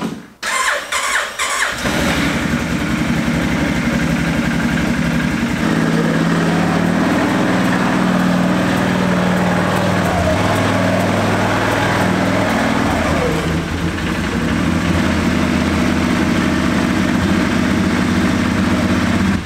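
Four-wheeler (ATV) engine cranking for a couple of seconds, then catching and running, its pitch shifting a few times as the throttle is worked. The throttle, once thought to be sticking, comes back down promptly.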